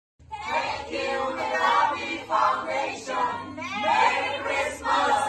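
A group of men's and women's voices raised together, cutting in suddenly from silence.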